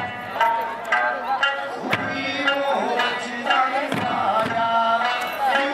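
Eisa festival music: singing with Okinawan taiko drums, the big barrel drums struck together about every two seconds.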